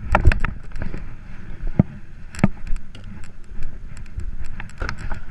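Car passenger door unlatching and swinging open, then a series of knocks, clicks and clothing rustle as someone climbs out, over the low rumble of the car.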